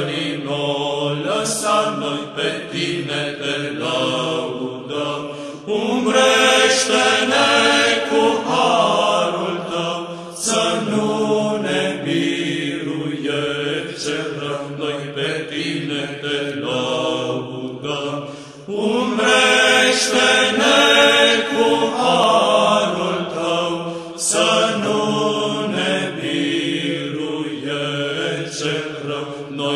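Slow sung vocal music, a melody of long held notes sung in phrases with brief breaks between them.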